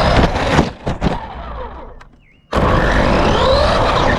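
An RC car's electric motor whines, rising in pitch as it accelerates, over the rumble of its wheels on the ground. The sound dies away about two seconds in, then comes back suddenly and loud, rising again.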